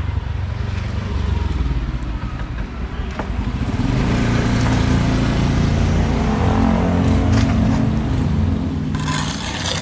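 A road vehicle's engine running close by, growing louder through the middle few seconds as it passes and then easing off.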